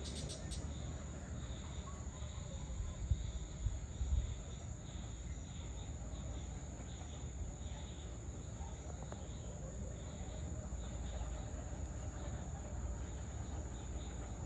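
Evening insect chorus: a steady high-pitched trill with a softer pulsing chirr beneath it, over a low outdoor rumble, with a couple of brief low bumps about three and four seconds in.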